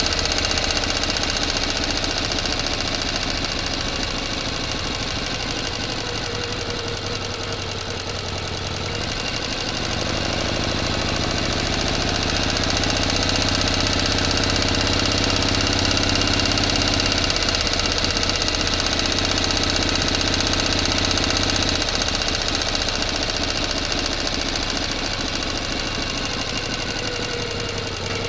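A motor running continuously with a steady, dense drone. Its low hum shifts in pitch about a third of the way through, and it grows a little louder for a while before easing back.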